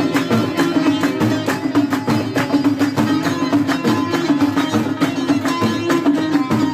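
Folk music in a Middle Eastern style, with plucked string instruments over a fast, steady percussive beat.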